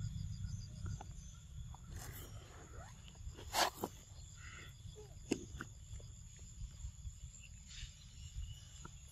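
Steady insect chirring with a low rumble underneath. Scattered small clicks and knocks, and one sharp, louder noise about three and a half seconds in.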